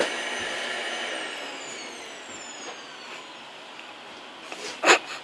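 Small vacuum cleaner's motor winding down after being switched off: its high whine falls steadily in pitch and fades over a couple of seconds. A single sharp knock near the end.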